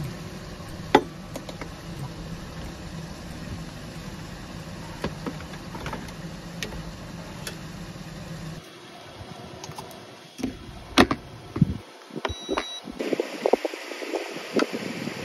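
A steady low hum with scattered light clicks, then knocks and clatter of a plastic strainer bowl and a rice cooker being handled, a short electronic beep, and wind noise near the end.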